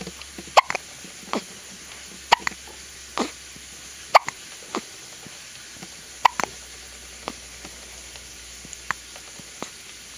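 A two-week-old baby hiccuping: short, sharp hiccups at uneven intervals, about one a second, the strongest roughly every two seconds.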